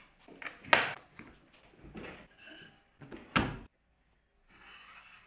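Small wooden blocks handled and set down on a wooden workbench: a few sharp wood-on-wood knocks, the loudest about three seconds in, with quieter rubbing and shuffling between. Near the end, a faint scratch of a pencil marking the wood against a small square.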